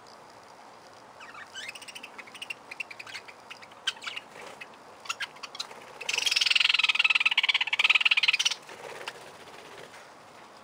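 Budgerigars chirping in short calls, then a loud, rapid rattling chatter lasting about two and a half seconds from about six seconds in.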